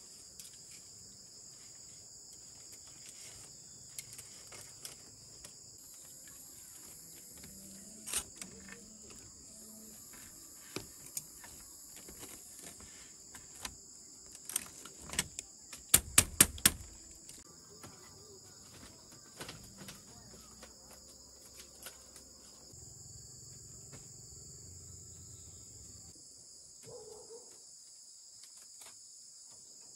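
Crickets or other insects chirring steadily, with scattered light knocks and taps. About halfway through come four sharp, loud knocks in quick succession.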